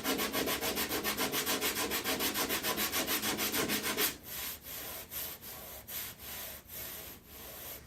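Sandpaper rubbing over body filler (Bondo) on a car door, knocking down a high spot the restorer can still feel in the filler. Quick, even strokes at about nine a second for the first four seconds, then slower, quieter strokes.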